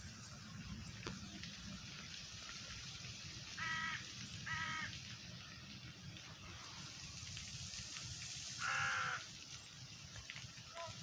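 A crow cawing three times, two short caws about a second apart and a louder one several seconds later, over the steady rush of running water.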